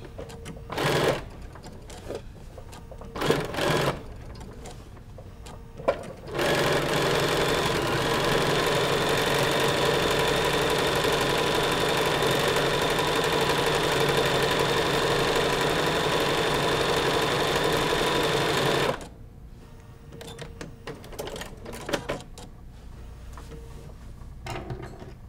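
Sewing machine set to a slow speed, stitching a straight-stitch outline around an appliqué circle. It runs in a few brief spurts, then steadily for about twelve seconds before stopping; small clicks of fabric handling follow.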